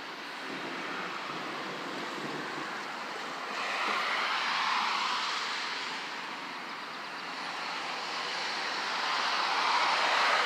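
Derecho storm wind blowing hard in gusts, swelling loudest about four seconds in and again near the end.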